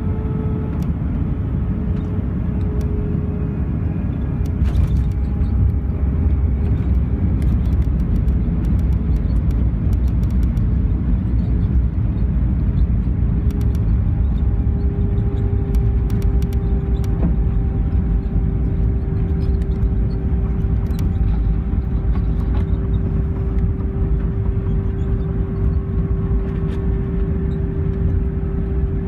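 Cabin noise of an Airbus A320 touching down and rolling out on the runway: a loud, steady rumble from the wheels and airframe with the jet engines' steady hum over it.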